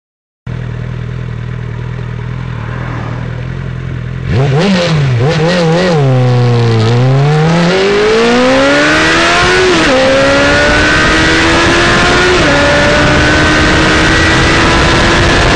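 Suzuki Bandit 650 S inline-four through a TRS Coyote slip-on exhaust, heard onboard. It runs steadily, then from about four seconds in revs up and down twice and pulls hard, the revs climbing through the gears with upshifts about ten and twelve and a half seconds in. Wind rush builds as it speeds up.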